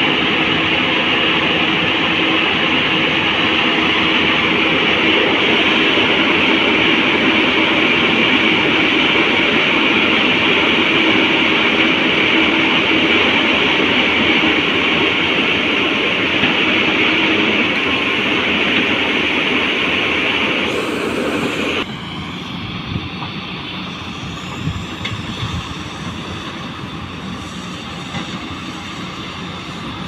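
JCB and Tata Hitachi excavators working in deep mud: loud, steady diesel engine and hydraulic noise with a steady whine. About 22 seconds in it drops suddenly to a quieter machine sound with a few knocks.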